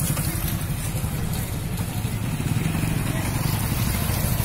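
Several motorcycle engines running steadily as the bikes ride up and approach, a low, even, fluttering rumble.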